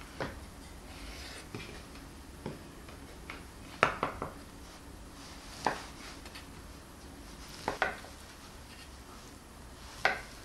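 Chef's knife slicing through stacked sheets of fish cake and knocking on a wooden cutting board: sharp single taps a second or two apart, the loudest about four seconds in.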